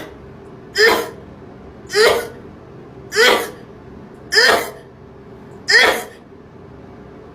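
A woman sneezing five times in a row, about one sneeze a second, each a short sharp voiced burst: a sneezing fit that she puts down to a sneezing disorder.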